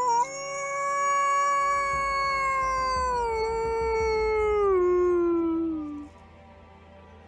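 One long wolf-type howl. It rises, holds steady for a few seconds, then falls in steps and fades out about six seconds in.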